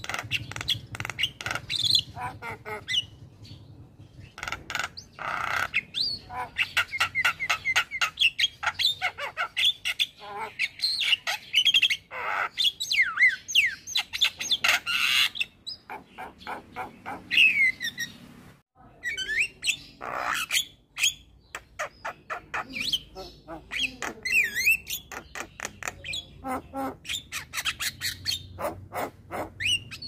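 Male Javan myna (jalak kebo) singing a fast, near-continuous run of harsh squawks, chattering notes and quick whistled sweeps, with one brief break about two-thirds of the way through.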